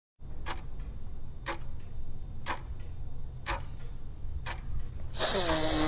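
Clock ticking about once a second. About five seconds in, a loud hissing burst with a falling tone cuts in over the ticking.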